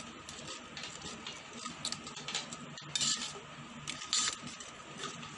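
A spoon stirring milk and sago in a metal pot, clinking and scraping against the pot, with two louder scrapes about three and four seconds in.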